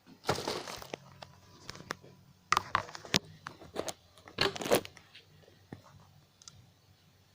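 Rustling, crinkling handling noise in short bursts, with several sharp clicks and knocks of small objects being picked up and set down.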